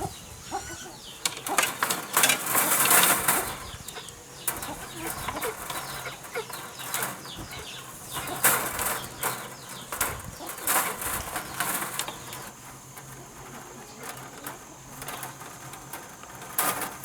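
Chickens calling, with scattered knocks and clicks throughout and a louder stretch of noisy rasping about two to three seconds in.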